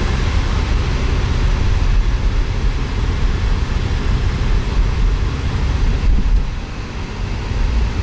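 Car driving along a paved road, heard from inside the cabin: steady tyre and engine noise with a strong low rumble.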